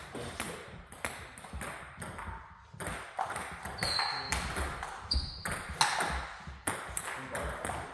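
Table tennis balls clicking off bats and tables in rallies at two tables: an irregular stream of sharp knocks in a large sports hall, with two brief high squeaks near the middle.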